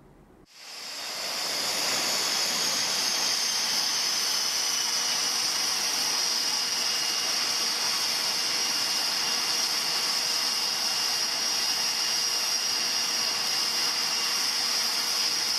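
A steady rushing hiss with a high whine over it, fading in about half a second in and then holding level; the whine eases slightly down in pitch over the first few seconds.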